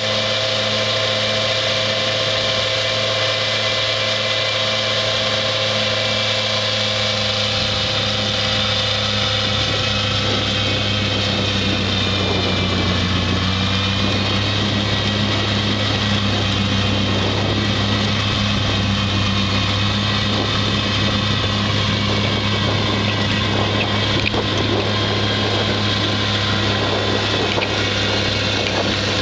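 Bad Boy mower's engine running steadily at working speed, driving a front-mounted Bercomac 66-inch snow blower that throws snow with a continuous hiss. The engine note sags slightly about halfway through, then holds.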